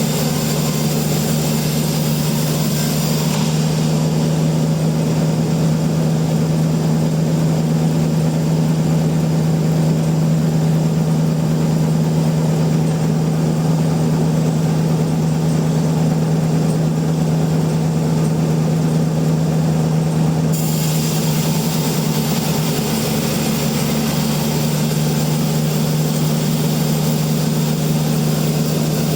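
Sawmill machinery running steadily with a strong, even low hum. A high hiss fades out about three and a half seconds in and comes back suddenly about twenty seconds in.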